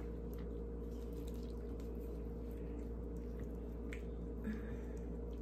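Faint wet squishing and a few soft clicks as hands work inside the body cavity of a freshly gutted wild turkey, over a steady low hum.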